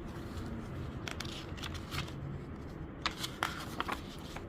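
Soft paper rustling with a few light clicks and handling noises, as of a page of a picture book being turned.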